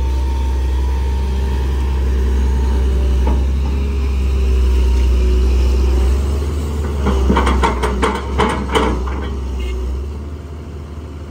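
Sunward SWE210 excavator's diesel engine and hydraulics running steadily under load as it digs and swings. About seven to nine seconds in, a quick series of thuds as the bucketful of soil drops into a dump truck's bed, and the engine settles lower near the end.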